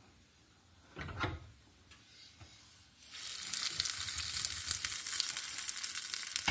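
A tempering of mustard seeds, urad dal, red chillies and curry leaves in hot oil sizzles and crackles as it is added to the chutney. The sizzle starts suddenly about three seconds in and keeps going. A single knock comes about a second in.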